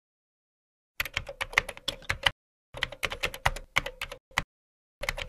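Keyboard typing sound effect: rapid keystroke clicks in three quick runs, starting about a second in, with abrupt silences between them, as a title is typed out.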